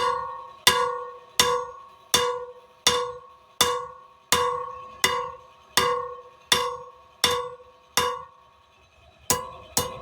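Hammer blows on an anvil while forging a piece of quarter-inch square steel stock, a steady rhythm of about one ringing strike every 0.7 seconds. The strikes pause about eight seconds in, then three quicker blows follow near the end.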